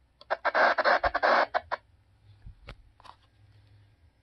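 CB radio hissing static with crackles from its speaker, in a burst about a second and a half long, followed by a few faint clicks.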